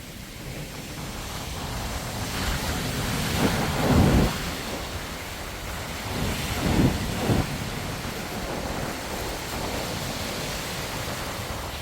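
Sea waves washing onto the shore, with wind rumbling on the microphone; the surf swells louder about four seconds in and again around seven seconds.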